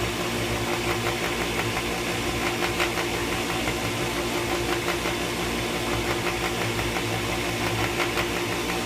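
Pentair WhisperFlo pool pump running with a steady hum and a faint, irregular rattling over it. The pump is still noisy even though its motor bearings have been replaced.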